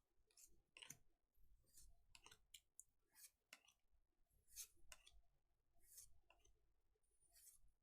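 Faint, irregular clicks and swishes of Pokémon trading cards being flipped and slid against one another, about two a second.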